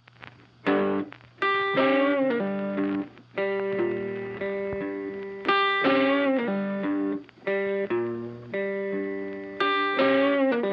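Intro music: an electric guitar with effects playing a repeating riff of chords and notes.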